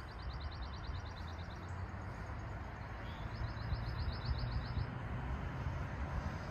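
Steady rumble of distant road traffic, with a songbird giving two rapid high trills of quickly repeated notes, one at the start and one about three seconds in.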